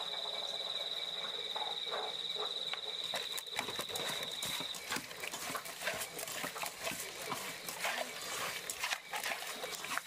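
Hands rubbing small river fish with salt in an aluminium pot: wet squelching and scraping in many short irregular strokes from about three and a half seconds in. A steady high whine stops about five seconds in.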